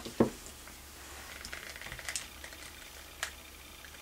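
Light clicks and taps of hands handling lace trim and picking up a hot glue gun on a craft table, with one sharper click just after the start.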